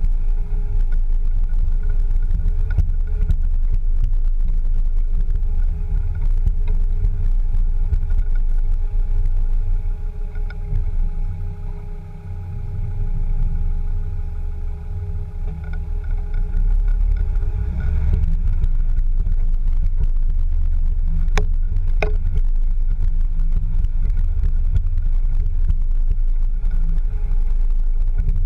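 Land Rover Discovery 2 driving slowly over a muddy off-road track, heard close to the rear wheel as a steady low rumble of engine, drivetrain and tyres with a faint steady whine. The rumble eases for a few seconds midway, and two sharp knocks come close together about three-quarters of the way through.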